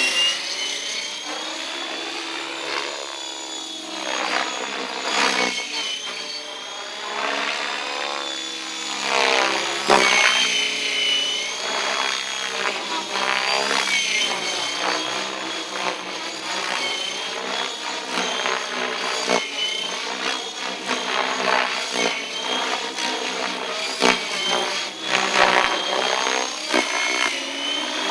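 Miniature Aircraft ION-X electric RC helicopter running on a 14S battery pack, flown hard: a steady high motor-and-gear whine runs under a rotor sound whose pitch keeps sweeping up and down as the model is thrown around.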